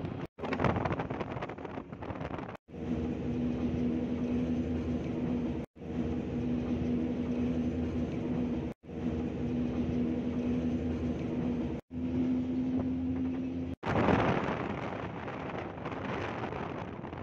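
Car driving along a road: steady engine drone with tyre and road noise, broken up by short gaps of silence every few seconds. Louder rushing noise comes near the start and again about fourteen seconds in.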